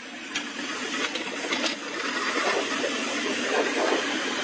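Caterpillar hydraulic excavator's diesel engine running under load, with a few sharp knocks in the first two seconds.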